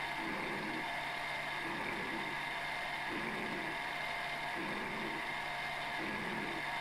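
Milling machine running steadily with a high whine while a home-made form-relieved gear cutter cuts teeth in an oiled steel gear blank on a dividing head, in sped-up footage. A low swell recurs about every second and a half.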